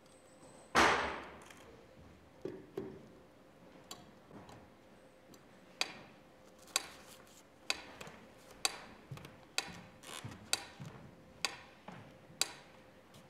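A loud knock about a second in and a few softer knocks, then a pyramid metronome ticking steadily, about one tick a second, through the second half.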